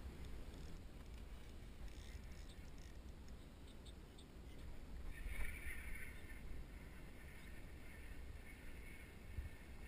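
Steady low rumble of wind and water on the microphone of a kayak. From about five seconds in there is a faint higher-pitched sound, strongest for about a second and then fainter.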